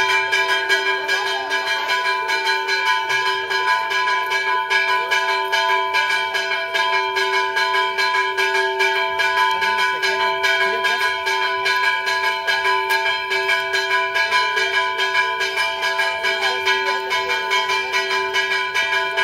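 Church bell rung rapidly and without a break, several strikes a second, each stroke ringing on into the next.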